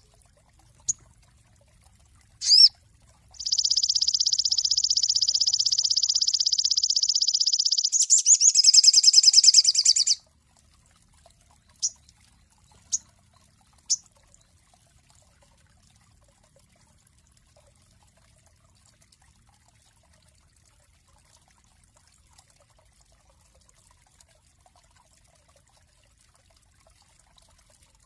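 Sogon songbird singing: a couple of sharp high chirps, then a long, even, high-pitched trill lasting about four seconds that turns into a louder rattling trill for about two seconds, followed by three single chips about a second apart.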